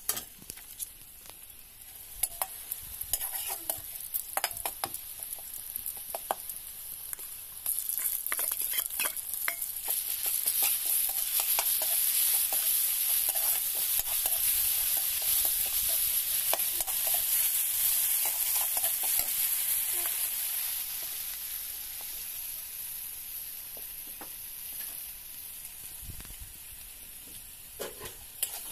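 Sliced onions sizzling in oil in a steel kadai, stirred with a steel spatula that scrapes and clacks against the pan. The sizzle jumps louder about eight seconds in and eases off over the last third.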